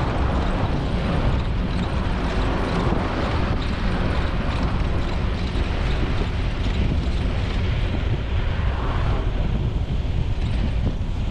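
Steady wind noise on the microphone over a low road and traffic rumble, from a camera moving along a city street.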